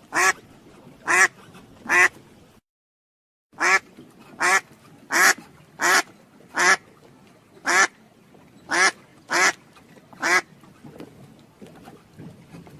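Duck quacking: a run of single short quacks, roughly one a second, with a brief dropout to total silence about three seconds in.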